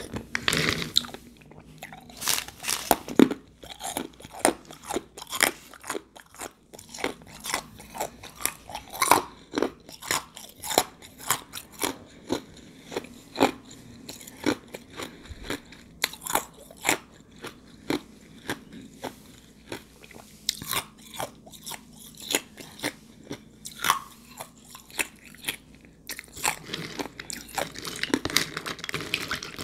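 Close-miked chewing of ice soaked in juice: a run of sharp, wet crunches, about one or two a second, as the ice is bitten and ground between the teeth.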